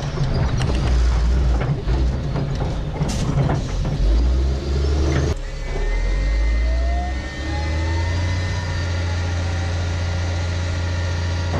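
An M142 HIMARS truck's diesel engine running, heard from on the launcher. For the first five seconds many sharp clicks and rattles sit over it. It then changes abruptly to a steadier drone, with a whine that rises for a couple of seconds.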